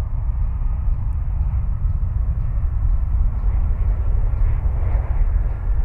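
Jet airliner engines giving a low, steady rumble that swells slightly near the end.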